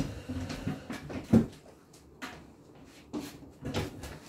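A few separate knocks and thumps as a person gets up from a wooden kitchen chair and moves about, the loudest about a second and a half in.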